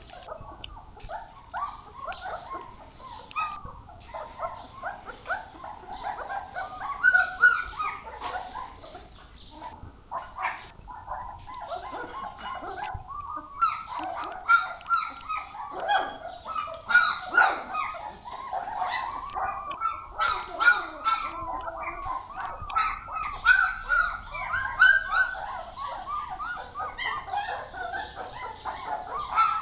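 A litter of puppies whining and yipping over and over while being hand-fed, many short calls that rise and fall in pitch and overlap one another.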